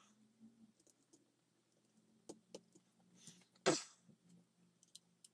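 Faint clicks and taps of small plastic and metal air-pistol parts being handled and fitted together, with one louder knock a little past halfway.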